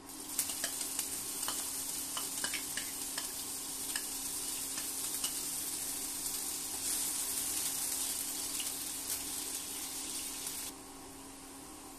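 Chopped onion sizzling as it fries in hot oil with cumin seeds in a nonstick frying pan, with the clicks and scrapes of a wooden spatula stirring it. The sizzle grows louder about seven seconds in and drops off sharply near the end.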